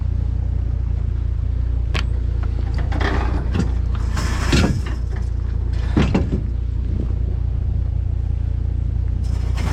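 Vehicle engine running steadily, with a few brief knocks and scrapes about two, four and six seconds in.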